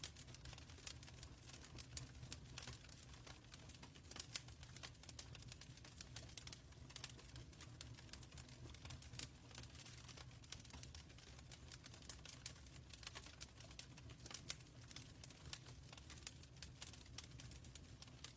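Wood fire crackling in a fireplace: irregular sharp crackles, several a second, over a steady low rumble of the flames.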